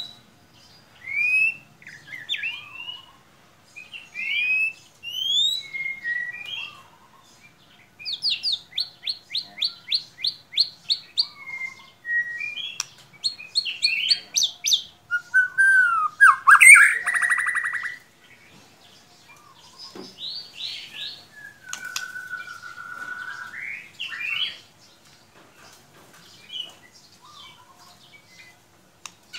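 White-rumped shama (murai batu) singing a varied song of rising whistles and rapid runs of repeated notes. It breaks into a loud, harsh buzzy phrase a little past the middle, then gives a longer sliding whistle.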